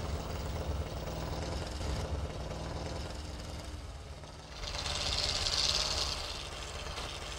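Off-road truck's engine running steadily as it drives along a snowy track. About four and a half seconds in, a rushing hiss rises over it for a couple of seconds, then fades.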